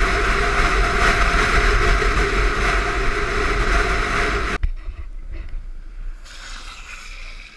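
Steady roar of longboard wheels rolling fast on asphalt, mixed with wind rushing over the microphone during a downhill run. It cuts off suddenly about two-thirds of the way through, leaving only faint wind.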